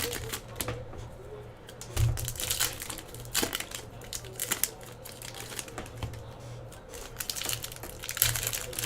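Crinkling of trading-card pack wrappers being opened and handled, with scattered sharp clicks and taps as cards are flipped through; the crinkling is loudest near the end.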